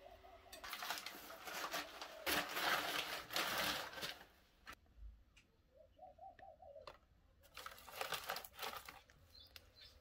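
Rustling and clattering handling noise, loudest about two to four seconds in and again around eight seconds, from dry sticks being packed by hand into the firebox of a wood-fired concrete stove. A dove coos a short run of notes in the background about six seconds in, and once briefly at the start.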